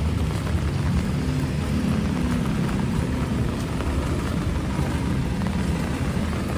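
Typhoon wind and heavy rain, a steady loud rush with a low, fluttering rumble of wind buffeting the microphone.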